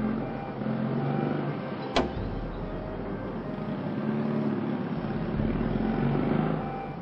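A single sharp click about two seconds in as an SUV's door is opened, over a steady low rumble with faint held tones.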